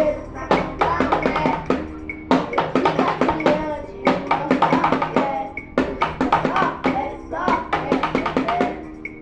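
Drum kit played along to a recorded pisadinha-style forró song: rapid, dense drum hits over the song's melody and bass.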